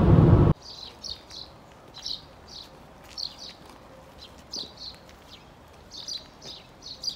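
Car cabin road noise for the first half second, cutting off suddenly. Then small birds chirping outdoors in short, high, scattered calls.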